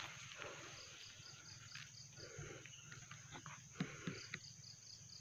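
Faint insects chirping: a steady high-pitched drone with a pulsing chirp about five times a second that comes and goes, and a few soft clicks about four seconds in.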